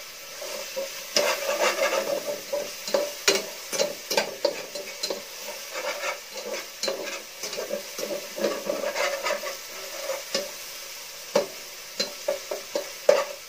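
Garlic and onion sizzling in hot oil in a pot, sautéed nearly to golden brown, while a slotted turner stirs and scrapes the pot in quick, irregular strokes.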